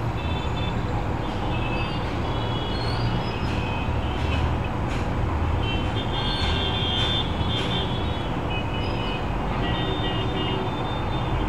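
Heavy city road traffic: a steady rumble of buses, cars and motorbikes, with several short horn toots coming and going over it.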